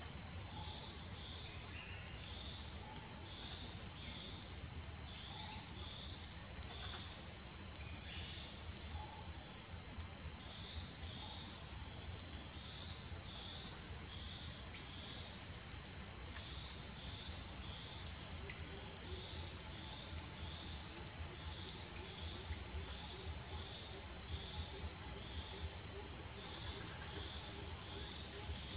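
A loud, steady, high-pitched insect drone in two shrill bands.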